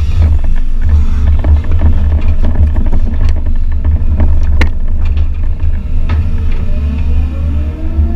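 Excavator's diesel engine running steadily under load while the steel bucket scrapes and drags loose topsoil, with a few sharp knocks of the bucket about three to five seconds in. A rising whine comes in near the end as the machine swings.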